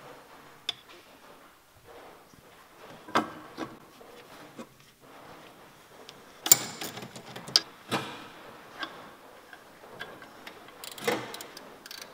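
Irregular metallic clinks and knocks as a new inlet manifold is handled and fitted onto the studs of an Alfa Romeo Giulia engine's cylinder head. The sharpest clusters come a few seconds in, about halfway through, and near the end.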